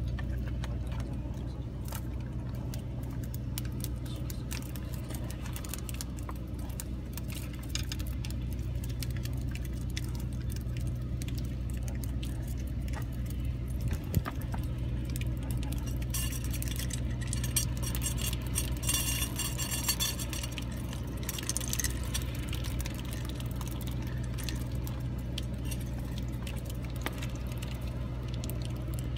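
Light metallic clinks and clicks of fishing tackle being handled while a small fish is unhooked, with a sharp knock about halfway and a spell of jingling soon after, over a steady low engine hum.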